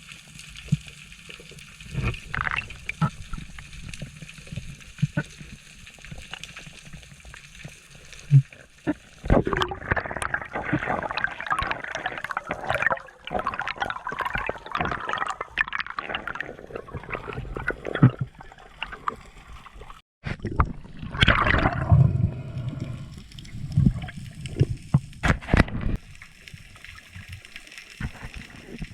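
Sea water gurgling and splashing, with scattered knocks and a louder stretch of rushing water about ten seconds in; the sound breaks off for a moment about twenty seconds in, then the splashing resumes.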